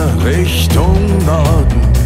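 Background music: a pop song with a melody line over a steady beat.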